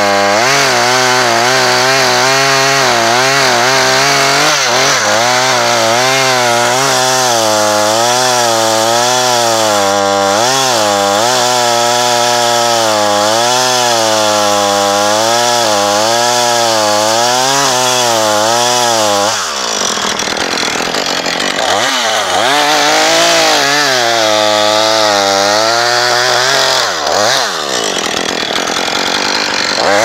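Gas chainsaw running at full throttle while cutting into a sawn log, its engine note wavering up and down as the chain loads in the cut. About two-thirds of the way through it eases off briefly and revs back up into the cut, dipping once more near the end.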